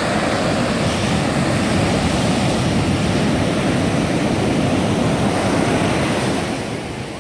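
Ocean surf: a wave breaks and its whitewater rushes up the sand, a loud, steady rushing that fades near the end.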